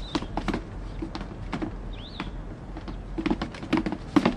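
Scattered light taps and knocks of footsteps and movement on a floor, irregular and uneven. A bird gives one short chirp about halfway through.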